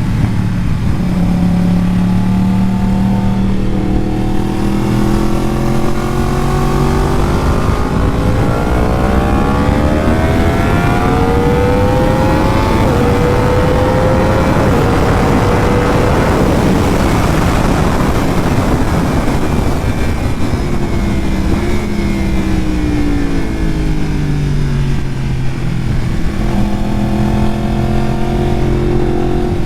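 Yamaha R1 inline-four engine accelerating hard through the gears, its pitch climbing with small steps at the upshifts, then a loud rushing noise at speed. About two-thirds of the way through the pitch falls as it slows and downshifts, then it pulls again near the end.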